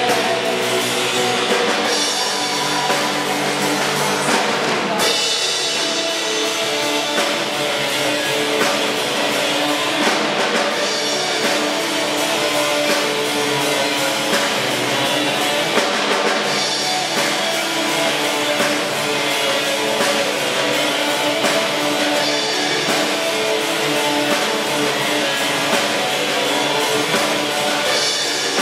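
Live rock band playing: amplified guitars, bass guitar and drum kit.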